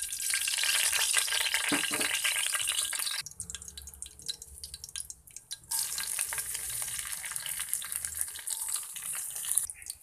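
Spice seeds and then chopped dried red chillies sizzling in hot oil in a metal wok while tempering spices. A steady hiss thins to scattered pops and crackles about three seconds in, then the full sizzle picks up again about two and a half seconds later.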